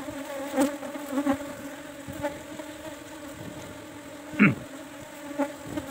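Steady hum of an Asian honeybee (Apis cerana) colony in an opened wooden hive box. A few short knocks of the wooden frames being handled cut through it, the loudest about four and a half seconds in.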